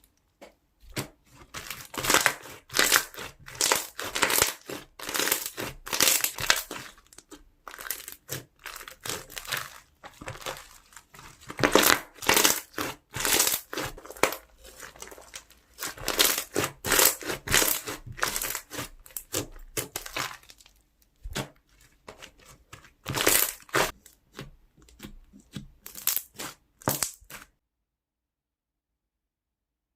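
Slime being squeezed, pressed and stretched by hand, giving dense crackly crunching and crinkling in irregular spurts. It cuts off suddenly near the end.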